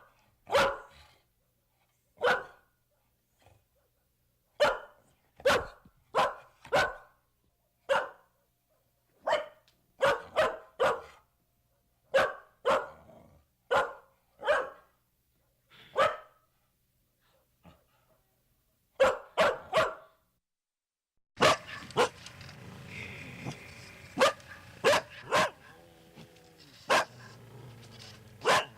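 Dog barking loudly in sharp single barks, some in quick pairs or threes, with short pauses between. About 21 seconds in, a different recording begins, with a steady background noise under further barks.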